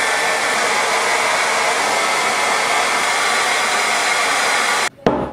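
Handheld hair dryer blowing steadily, with a faint steady whine, then cutting off suddenly about five seconds in, followed by a short click.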